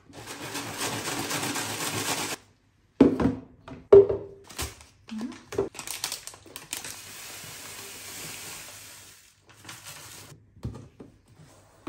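Dry cereal flakes rustling and shaking as a clear plastic container of cornflakes and sliced almonds is tilted back and forth to mix them. Then a few knocks and the crinkle of a plastic cereal packet, and a steady hiss of dry cereal poured from the packet into a plastic container, with a few small knocks near the end.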